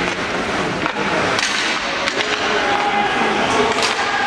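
Ice hockey play: several sharp stick-and-puck clacks and skate scrapes over steady arena crowd noise with scattered shouts.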